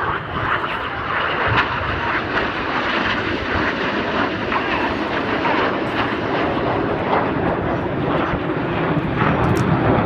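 Jet noise from BAe Hawk T1 jets flying a low display pass: a steady rushing sound that grows slightly louder toward the end.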